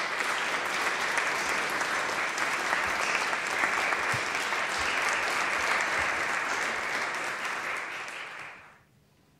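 Audience applauding steadily as the soloist and conductor take their places, dying away near the end.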